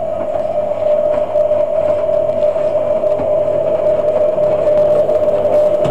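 Hotpoint WM22A Aquarius 1000 washing machine running with a steady, loud mechanical whine that grows a little louder.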